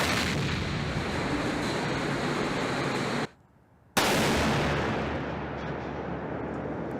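US Navy electromagnetic railgun firing twice, each shot a sudden blast followed by a long rumble that fades over several seconds. The second shot comes about four seconds in, after a brief silence.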